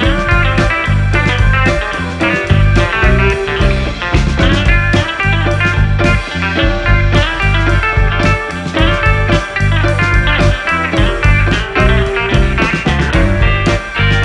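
Background music led by guitar, with a bass line and a steady beat.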